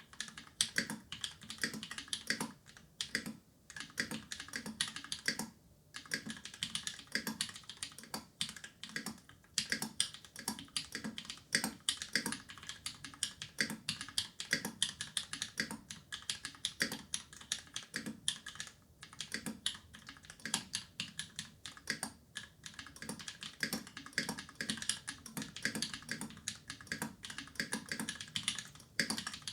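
Continuous fast typing on a mechanical keyboard with lubed Glorious Panda tactile switches mounted on an aluminium plate: a dense, uneven stream of key clacks with a few brief pauses.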